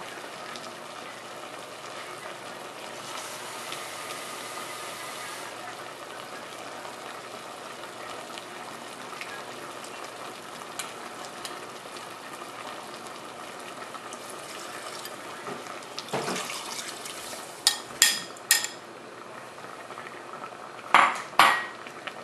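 Pork ribs boiling in sauce in an aluminium stockpot on a gas burner, a steady bubbling sizzle. Near the end, several sharp clinks of a spoon and dishes against glass and ceramic.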